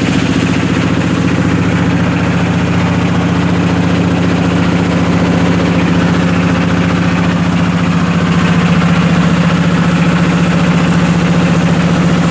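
A motorboat's inboard engine running at a steady speed, heard from on board as a loud, even low drone. It grows slightly louder about two-thirds of the way through.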